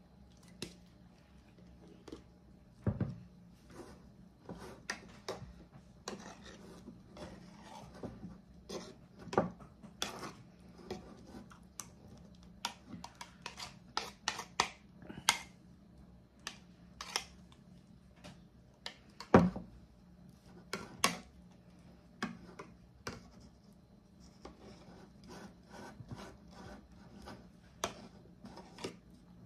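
Metal spoon scraping and clicking against a plastic measuring cup while scooping and levelling mayonnaise, in irregular short scrapes and taps. A few louder knocks stand out, the loudest about two-thirds of the way through.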